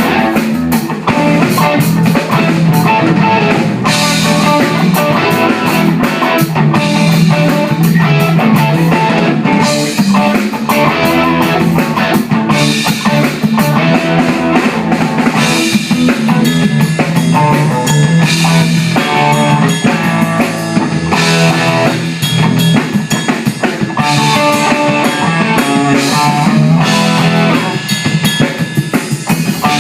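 A band playing rock music live: a drum kit with cymbals and bass drum, and a guitar, playing continuously.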